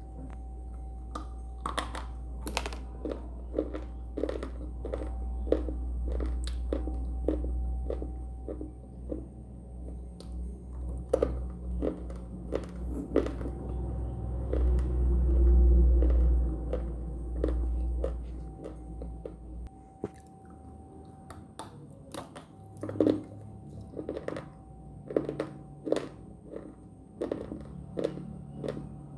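Biting and chewing of hard, crunchy edible slate sticks: sharp cracks and crunches one after another. A low rumble runs under the first two-thirds and stops abruptly.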